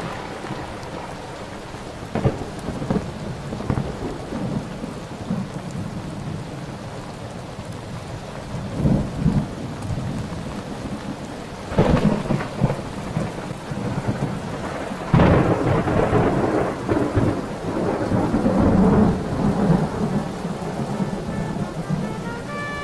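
Rain falling steadily, with several rolls of thunder. The loudest breaks suddenly about two-thirds of the way through and rumbles on for several seconds.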